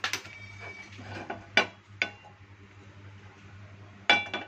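A nonstick kadai clanking on a gas stove's burner grate as it is set down and shifted. There are four sharp, ringing metal knocks, the loudest near the end.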